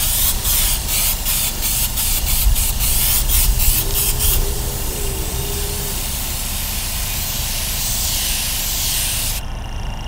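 Side-feed Grex airbrush with a 0.5 mm nozzle spraying paint on compressed air from a small piston compressor: a loud air hiss that comes in quick spurts for about the first four seconds, then holds steady and cuts off shortly before the end. A low rumble runs underneath.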